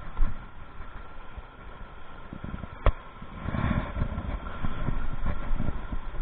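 Water rushing over rocks in a river at a small waterfall, a steady rush with low rumbling that swells from about halfway. A single sharp click comes just before the middle.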